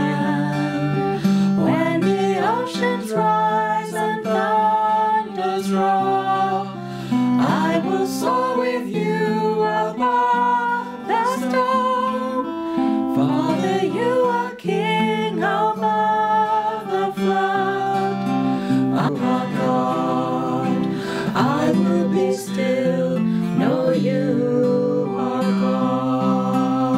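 Music played on acoustic guitar, a continuous run of plucked notes.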